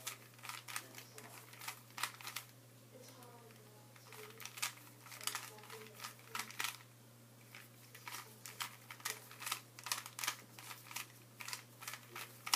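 Plastic Rubik's Cube being turned quickly by hand during a solve: an irregular run of sharp clicks and clacks, several a second.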